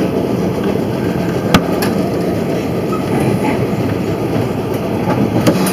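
Streetcar running along its track: a steady rumble of wheels on rail, with one sharp clack about a second and a half in.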